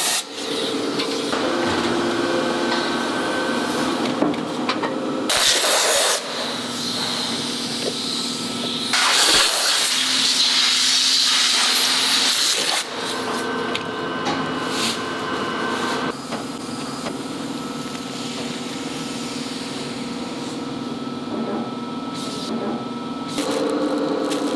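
Compressed-air blow gun hissing in two bursts, one about a second long and one about four seconds long, used to blow moulded silicone containers loose from a compression mould. Underneath, factory machinery hums steadily.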